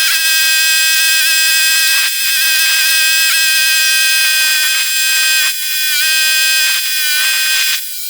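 An electric power tool motor whining steadily at a high pitch, in three runs with brief pauses between them. Its pitch sags briefly now and then as it takes load.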